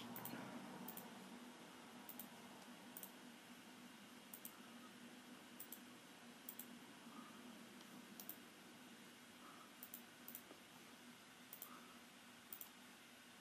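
Faint computer mouse clicks, sharp and irregular, about one a second, over a low steady hum.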